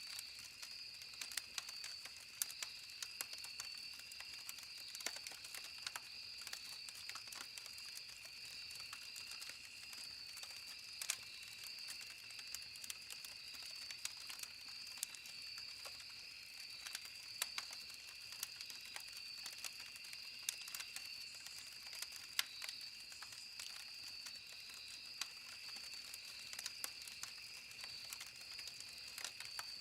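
Campfire crackling: burning wood giving irregular sharp pops and ticks, several a second, with a few louder snaps. A steady high-pitched drone runs underneath.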